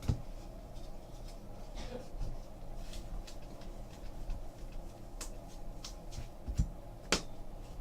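Trading cards being handled on a table: faint rustles and light taps and clicks, a few seconds apart, over a steady low room hum.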